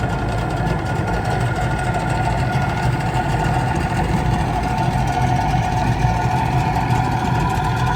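Old 60-horse Mercury oil-injected two-stroke outboard running steadily at idle.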